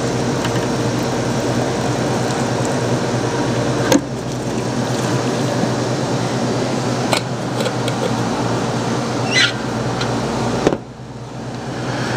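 Steady mechanical hum and hiss with a few light clicks at a coffee dispenser; about two-thirds of the way through, the hum cuts off suddenly with a click.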